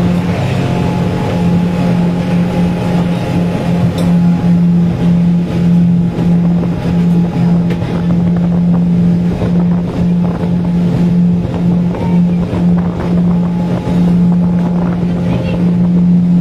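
Suzuki 100 hp outboard motor running steadily under way, a constant drone with rushing wind and water noise behind it.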